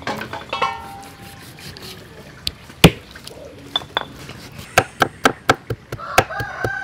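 Kitchen knife striking a thick wooden chopping board: one sharp knock about three seconds in, a few lighter clicks, then from nearly five seconds in a steady run of quick chops, about four a second, as a root is chopped.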